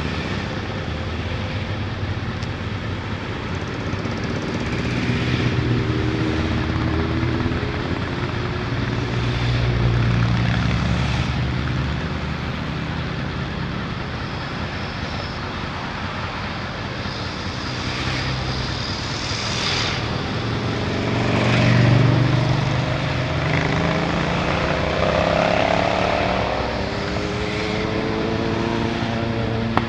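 Motorcycles and cars passing one after another, each swelling and fading, the loudest about two-thirds of the way through, over a steady low motorcycle engine idle.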